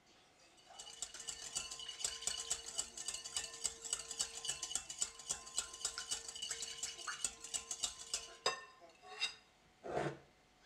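Metal balloon whisk beating a thin liquid of warm milk, water, oil and yeast in a glass mixing bowl: fast, even clinking of the wires against the glass, about five or six strokes a second, with the bowl ringing under it. It stops with a sharp tap near the end, then a louder knock.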